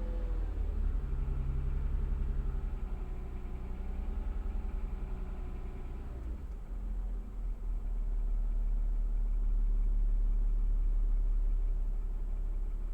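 Toyota 2GR-FE V6 engine running. Its pitch drops slightly soon after the start and again about six seconds in, then it settles into a steady idle. The owner asks about a knocking noise from this engine at around 1400 rpm.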